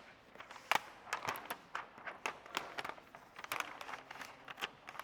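Plastic film crinkling and crackling as a sheet of paint protection film is handled and its backing liner peeled: a run of irregular small clicks.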